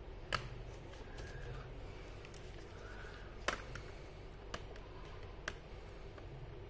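Four sharp plastic clicks at irregular intervals as a flat pry tool works the keyboard of an HP Pavilion G6 laptop loose, its retaining tabs snapping free of the chassis.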